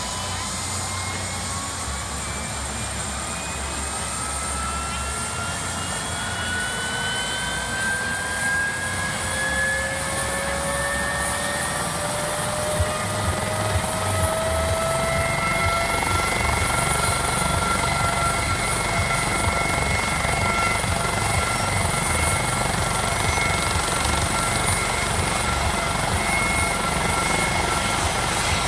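Medical helicopter running on the ground with its turbine engines spooling up: a whine rises in pitch over about the first half, then holds steady as the rotor comes up to speed, over a steady rotor rumble.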